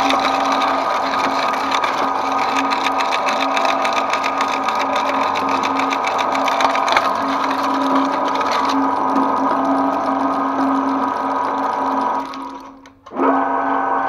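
Electric twin-shaft shredder running with a steady motor hum, its toothed cutters crackling as they tear through foil-wrapped items for most of the first nine seconds, then running lighter. The sound drops away briefly near the end and comes straight back.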